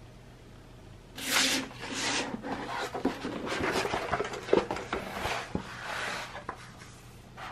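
A rolled paper poster being pulled out of a cardboard mailing tube and unrolled: paper rustling and scraping in irregular bursts, with a few light taps.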